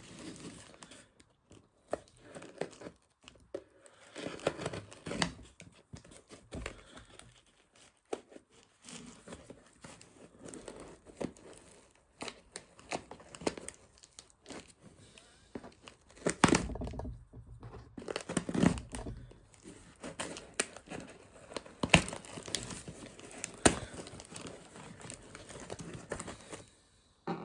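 Packing tape being peeled and ripped off a cardboard parcel by hand, in irregular tearing rips and crinkles with short pauses between them.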